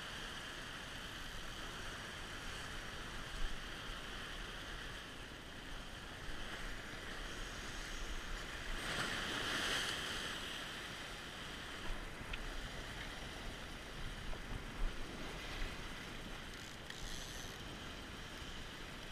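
Ocean waves washing and foaming over a rocky shore ledge, with a louder surge of whitewater about halfway through and a few light knocks. Wind is on the microphone.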